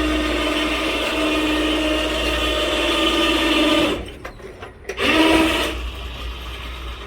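Electric winch motor running steadily with an even whine as it winds in steel wire rope, stopping about four seconds in, then a second short run of under a second.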